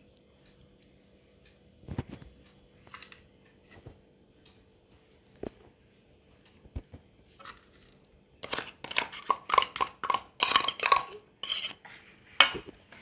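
Spoon and bowls clinking and scraping as ingredients are transferred into a mixing bowl. There are a few scattered light knocks at first, then a quick run of clinks and scrapes from about eight and a half seconds in.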